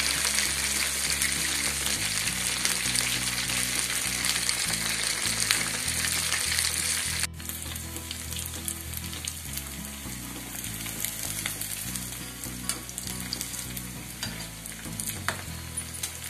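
Idli fingers deep-frying in hot oil in an iron kadai: a loud, dense sizzle and crackle that drops suddenly to a softer sizzle about seven seconds in. The pieces are being fried until they turn golden brown.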